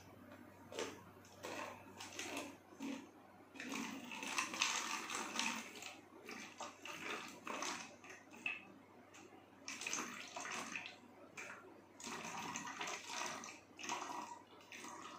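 Vinegar being poured from an upturned bottle into a plastic bottle, the liquid splashing and gurgling in uneven spurts.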